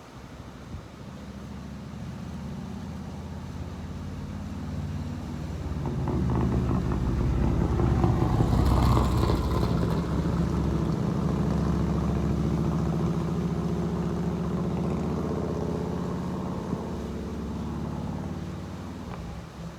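A motor vehicle's engine swells as it approaches, runs loudest around the middle, then fades away as it passes.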